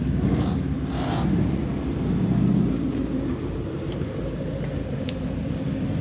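A stream of Ford Mustangs driving past one after another, engines running with a deep, steady note.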